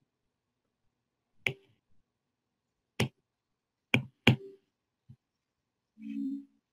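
A few sharp, isolated clicks from writing on a digital whiteboard, about four of them over three seconds, then a short low hum near the end.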